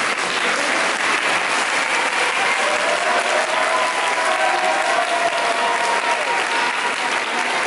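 A crowd applauding steadily, the clapping of many hands. A few voices can be heard over it in the middle.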